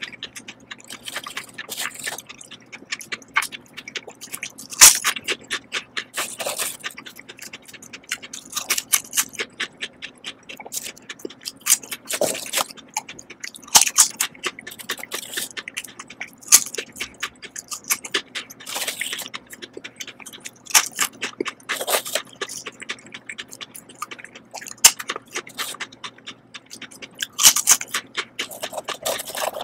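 Lay's Texas BBQ potato chips being crunched and chewed close to the microphone: a quick run of crisp crackles with a louder crunch every few seconds.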